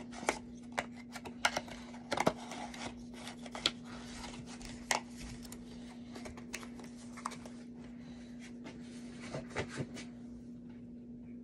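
Scattered clicks, taps and rustles of small items and packaging being handled by hand, busier in the first part and sparser near the end, over a steady low hum.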